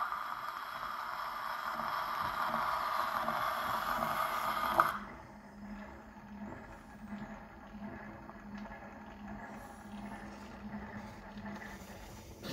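Horn gramophone's needle hissing in the groove of a 1902 Berliner commemoration record after the recording ends, cut off by a click as the tone arm is lifted about five seconds in. The spring-driven turntable keeps turning with a soft low pulse about every two-thirds of a second, and a brief knock comes near the end.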